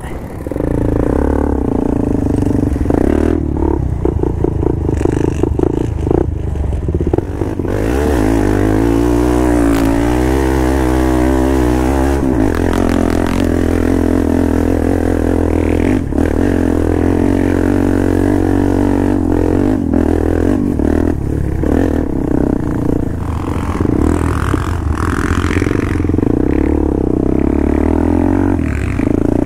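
Off-road vehicle's engine running loud and close, its revs wavering up and down about eight to twelve seconds in, with rattling and clattering over it.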